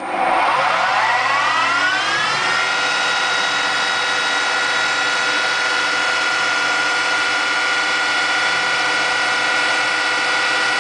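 A small CNC lathe's motor whine starts on cycle start, rising in pitch for about two seconds as it spins up. It then runs at a steady high whine.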